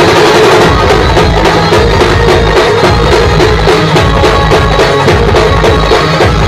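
A live musical band playing very loud music led by heavy drums and percussion, with a steady driving beat.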